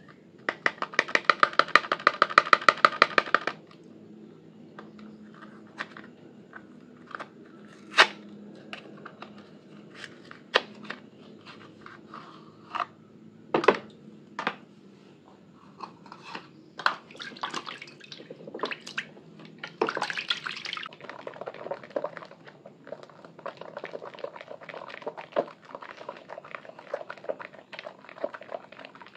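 A loud, rapid buzzing rattle for about the first three seconds, then a sponge rubbing a soaked bar of orange soap in water: scattered sharp wet clicks and scrapes, turning near the end into a steady squelching crackle of thick lather.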